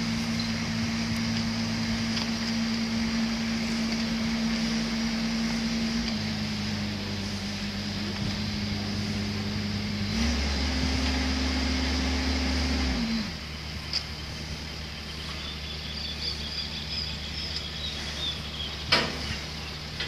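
Engine of a rail-mounted aerial work platform running steadily. It speeds up and gets louder for about three seconds past the middle, then drops back to a lower idle. A single sharp knock comes near the end.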